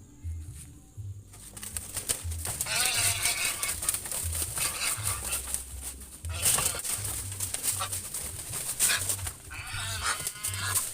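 Animal cries, two harsh wavering bouts, over a loud rushing noise with scattered clicks, while background music with a low steady beat runs underneath.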